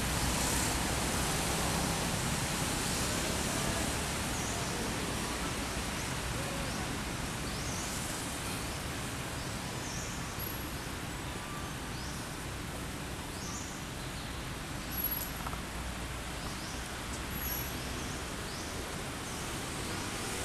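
Steady outdoor background noise with a low rumble, and faint, scattered high-pitched bird chirps.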